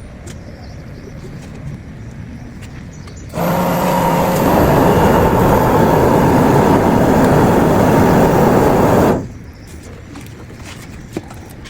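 A loud, steady rushing noise with a faint hum starts abruptly about three seconds in and cuts off suddenly about six seconds later, like a blower or burner switched on and off.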